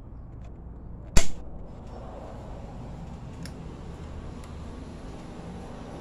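A single sharp metal click about a second in, then two faint ticks, over a steady low hum, as a hand tool is handled at an industrial sewing machine's needle area.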